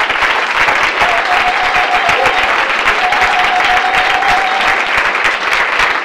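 Audience applauding, many hands clapping in a loud, steady patter.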